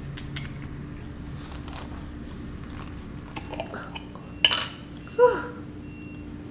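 Small clicks as a glass jar of jerk seasoning is handled and its metal lid unscrewed, then two sharp clinks about a second apart near the end, the second as the metal lid lands on the stone countertop and rings briefly, falling in pitch.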